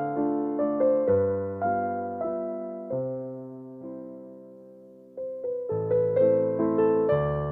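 Background music of a soft piano melody, one note after another, each ringing and fading. The notes thin out and die away about four seconds in, then the playing starts up again about a second later.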